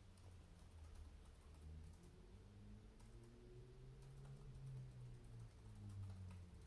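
Faint wet clicking of a dog licking at its paw and mouth, over a low wavering drone.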